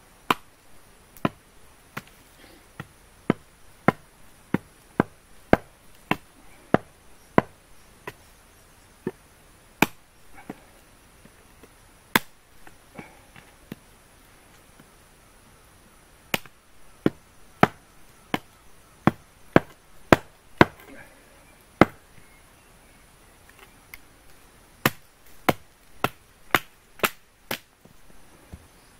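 Firewood being chopped: runs of sharp chopping blows on wood, about two a second, with short pauses between runs.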